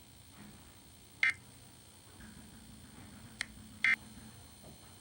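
Emergency Alert System end-of-message data bursts closing the required monthly test: two short, high electronic chirps about two and a half seconds apart, over a faint low hum.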